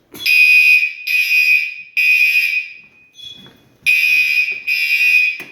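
Fire alarm horn sounding in a temporal pattern, a shrill tone in three blasts, a short pause, then two more blasts before it cuts off. It is the audible signal of a device being tripped while the Silent Knight 5208 panel is in walk test.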